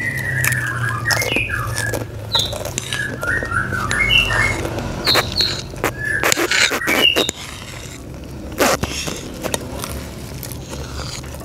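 Crisp potato chips crunching as they are chewed close to the microphone, a dense run of crackling clicks. High chirping whistles sound over it for the first seven seconds or so.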